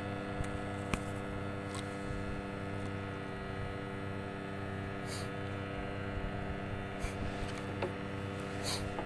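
Steady low hum with even overtones, from a boat's engine idling, with a couple of brief faint hisses.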